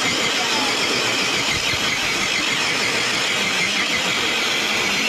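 Electric motor and gearbox of a 1.9-class RC crawler truck whining under load as it drags a 40 lb pull sled: a steady, loud, high-pitched whine.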